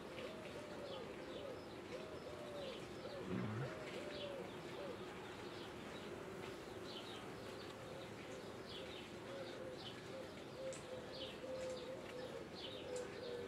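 Honeybees buzzing around an open hive as a frame is lifted out: a steady hum whose pitch rises and falls as bees fly close, with small birds chirping faintly.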